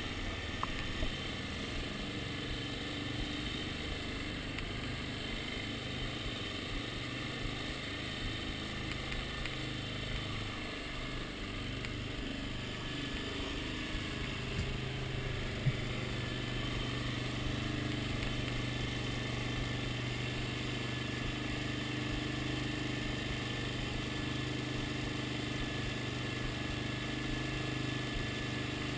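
Dirt bike engine running steadily at low revs, close to the microphone, with one sharp click a little past halfway.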